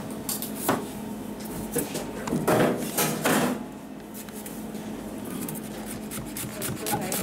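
Chef's knife slicing bell peppers on a plastic cutting board: irregular knocks as the blade strikes the board, thickest about two and a half to three and a half seconds in.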